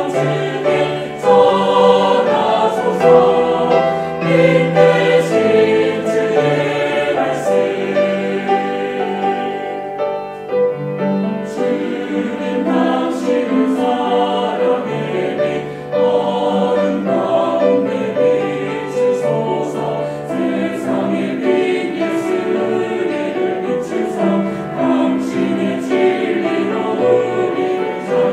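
Mixed choir singing a worship song in Korean, accompanied by piano and strings, with a brief softer passage about ten seconds in.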